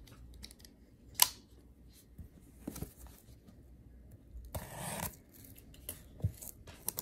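Cellophane shrink-wrap on a sealed trading card hobby box being handled and picked open. There is a sharp click about a second in, a few lighter taps, and a short crinkling tear of the plastic wrap a little past the middle.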